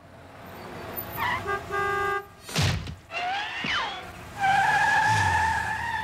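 Cartoon sound effects: short horn-like toots, a sudden crash, a falling whistle-like squeal, then a long steady honk.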